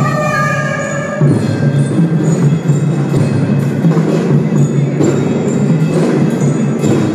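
A kindergarten drum band playing. A melodic chord is held for about the first second, then the band goes on with a steady drum beat under bright bell-like notes.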